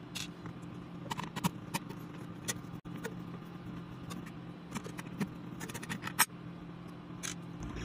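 A screwdriver unscrewing the mounting screws of a CPU tower cooler's bracket: scattered small metallic clicks and ticks over a faint steady low hum.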